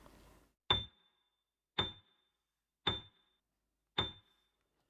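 Four short ticks about a second apart, each with a brief high ring, timing the pause: a countdown tick sound effect.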